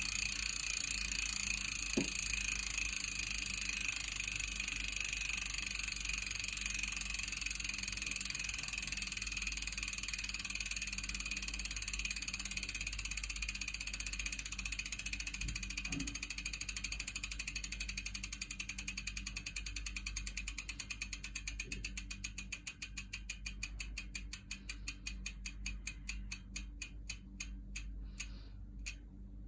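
Shimano rear freehub ticking as the mountain bike's rear wheel freewheels: a fast buzz of pawl clicks that slows into separate clicks and grows quieter as the wheel spins down.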